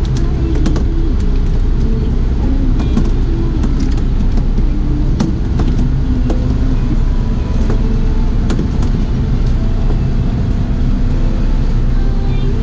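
Boat's outboard motors running with a steady low drone, with scattered small knocks and clicks as fish are handled on the fibreglass deck.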